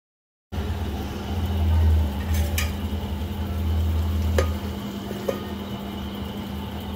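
Chopped okra cooking in a steel kadai on a gas stove, with a low steady rumble and a few sharp metal clinks, the last ones as a steel plate is set over the kadai as a lid.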